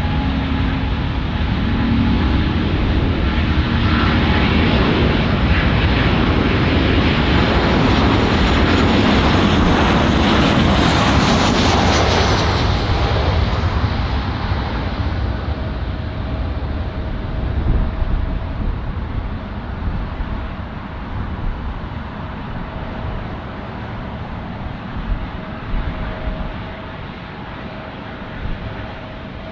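Airbus A350's Rolls-Royce Trent XWB jet engines running as the airliner taxis past close by. The engine noise and its high whine are loudest about ten seconds in, then fade to a weaker, steady hum with a thin whistle as the aircraft moves away.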